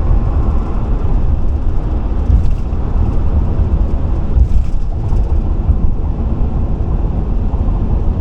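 Steady road and engine rumble of a Chevrolet cruising at highway speed, heard from inside the cabin, with brief faint hiss about two and a half and four and a half seconds in.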